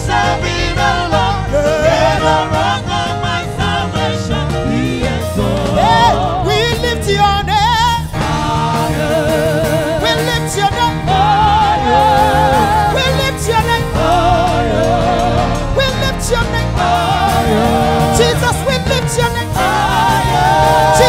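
Live gospel praise music: a woman singing lead with backing singers, over a band with a steady heavy bass and drums.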